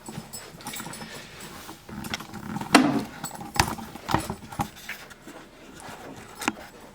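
A few sharp clicks and knocks spread over several seconds, the loudest about three seconds in together with a short low pitched sound.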